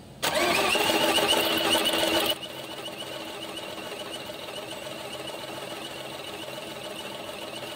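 Starter motor cranking a diesel engine for about two seconds with a compression gauge fitted to one cylinder, a wavering, pulsing whine that cuts off sharply. A steady low hum carries on after it.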